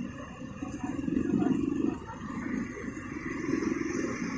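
Motorbike and car engines idling and running in slow traffic crossing the tracks, with a low rumble from the engines nearby that swells twice.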